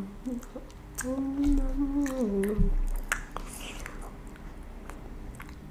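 A child chewing a soft mochi with small wet mouth clicks. About a second in comes a closed-mouth "mmm" hum lasting about a second and a half, which drops in pitch before it stops.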